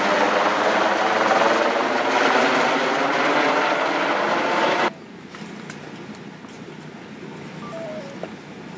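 Light helicopter flying low overhead, a loud steady rotor and turbine sound, cut off suddenly about five seconds in, leaving quieter outdoor background.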